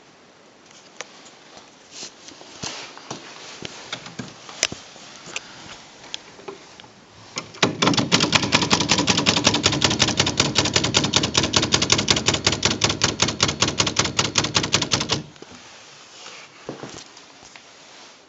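1930s Smith Premier portable manual typewriter: scattered light clicks, then about seven seconds of rapid, evenly spaced type strikes.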